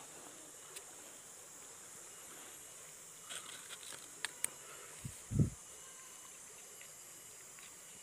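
Steady high-pitched drone of forest insects, with a few light clicks about three to four seconds in and a dull thump about five seconds in, the loudest sound.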